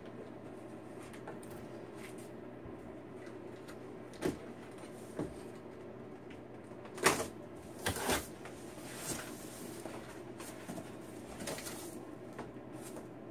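A knife slitting packing tape on a large cardboard box, then the cardboard flaps being pulled open. There are several short scrapes and knocks of cardboard, the loudest about seven and eight seconds in, over a steady low hum.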